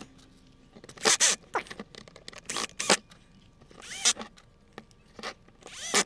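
Cordless drill driver running small screws back into a door-lock housing in short bursts, about four of them, each a brief motor whine that rises and falls in pitch.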